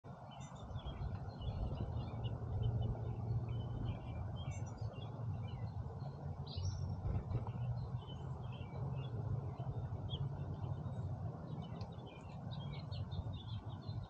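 Small songbirds chirping in many short, quick calls over a steady low rumble.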